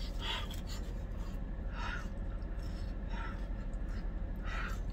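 A woman huffing short breaths out through her mouth, four in a row about a second and a half apart, to cool a mouthful of hot food.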